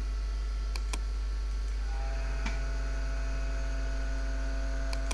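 Steady low electrical mains hum on the recording. Over it come a pair of quick computer-mouse clicks about a second in and another pair near the end.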